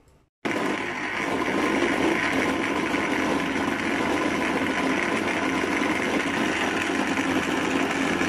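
Electric countertop blender running steadily, grinding tomatoes, yogurt and fried onions into a paste; the motor starts suddenly just under half a second in.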